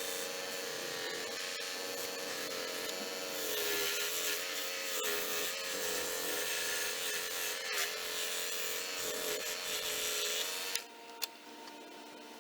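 Harbor Freight (Central Machinery) 16-inch scroll saw running and cutting wood: a steady motor hum under the rasp of the reciprocating blade. Near the end it stops abruptly, leaving a few faint ticks.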